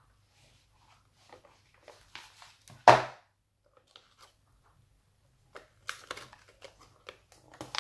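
Stiff silver metallic wrapping sheet crinkling and crackling as it is handled and pressed around a container, with one loud sharp crackle about three seconds in and a run of quick small crinkles near the end.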